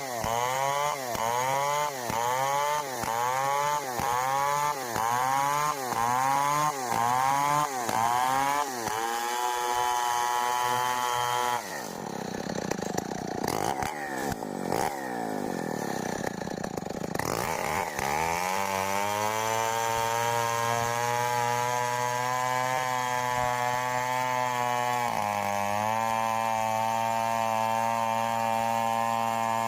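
Stihl 070 two-stroke chainsaw being revved in quick throttle blips about once a second, then held at high revs. Its speed sags with falling pitch partway through, then it climbs back and runs at a steady speed, with a slight drop in pitch near the end.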